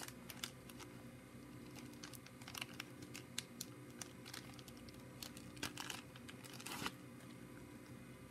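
Scattered light clicks and short rustles of paper and fabric being handled, with a brief louder rustle about five and a half seconds in and another near seven seconds, over a steady low hum.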